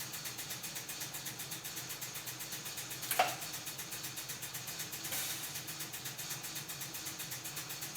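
Resistance spot welder at work: a steady, finely pulsing machine hum, one sharp clack about three seconds in, and a short hiss about two seconds later.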